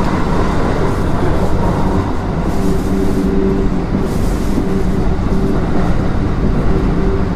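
Kintetsu 3200 series electric train running along the line: a steady rumble of wheels on rail with a steady low hum, and brief hisses about two and a half and four seconds in.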